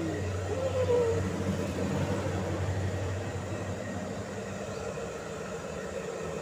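Handheld electric hair dryer blowing steadily, drying a wet kitten's fur after a bath.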